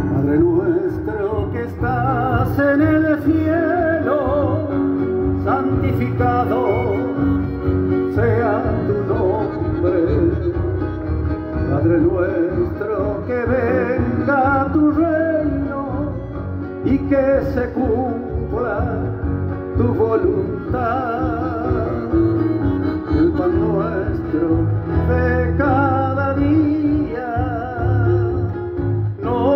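Live folk music from a stage band: accordion and acoustic guitars, with a wavering melody line over a steady bass, playing without pause.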